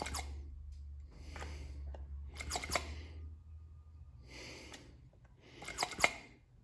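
Handheld vacuum pump being squeezed: about five strokes, each a short rush of air with sharp clicks, roughly a second and a half apart. It is drawing vacuum on an intake port of a freshly lapped cylinder head to check that the valves seal.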